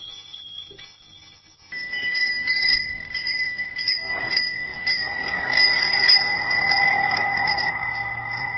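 Bicycle bell: one ring dies away, then about two seconds in a new recording cuts in with a bell ringing on steadily over background noise.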